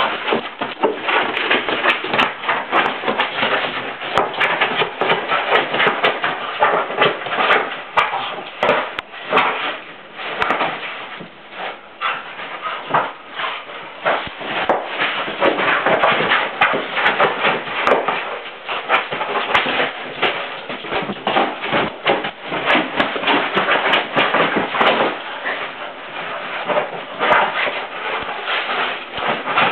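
A whippet pawing, pushing and chasing a large balloon: a continual irregular clatter of claws scrabbling and rubbing on the balloon's skin, with knocks and scuffs as it bounces and rolls.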